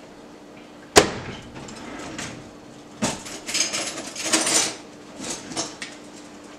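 A microwave door banged shut about a second in, then a rattling clatter of metal cutlery as a kitchen utensil drawer is opened and rummaged through, with a few lighter knocks after.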